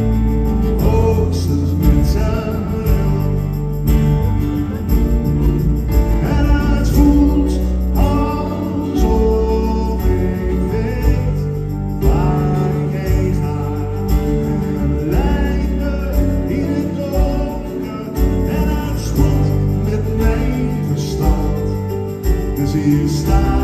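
Live band playing a song on acoustic guitars, electric bass, piano and drums, heard through the concert hall from the audience.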